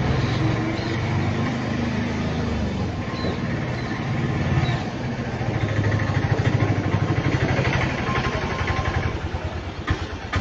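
A motor vehicle's engine running close by over street traffic noise, with a rapid, even pulsing for a few seconds in the middle and a short knock near the end.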